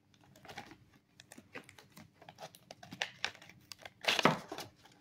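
Paper wrapper of a pack of gold Pokémon cards being torn open and crumpled by hand: a run of short crinkles and rips, the loudest about four seconds in.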